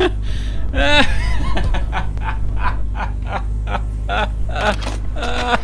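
A man laughing wildly in a long run of quick, pitch-jumping bursts: strange, almost psychopathic, crazy-sounding laughter. A steady low hum runs underneath.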